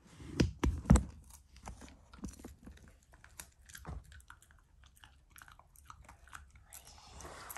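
A Shiba Inu chewing and crunching food, an irregular string of sharp crunches, the loudest about a second in.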